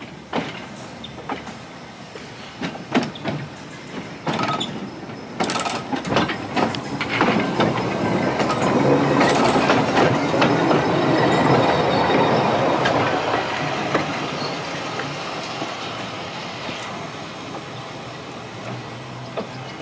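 Third Avenue Railway System electric streetcar 629 passing close by on the track: its wheels click over the rail joints and the running noise builds to its loudest about ten seconds in, then fades as the car moves away.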